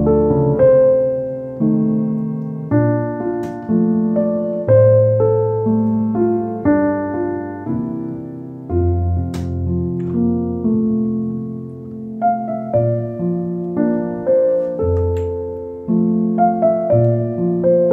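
Background solo piano music: slow, soft chords and single notes, each struck and left to die away.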